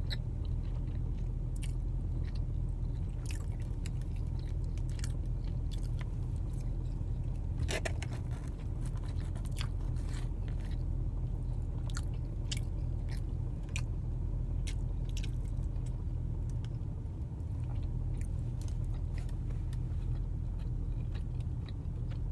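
Close-up chewing and biting of someone eating salmon, with many small scattered clicks and crunches. Under it runs the steady low rumble of the car's cabin.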